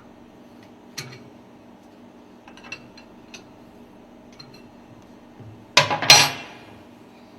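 Metal tools and parts clinking and tapping while an Alpha cylinder lubricator is being dismantled, with a loud metallic clatter of two close knocks about six seconds in. A steady hum runs underneath.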